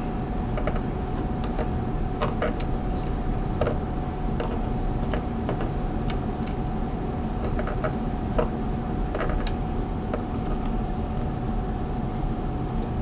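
Scattered small, sharp clicks of tiny metal padlock pins and springs being handled, over a steady low hum with a faint steady high tone.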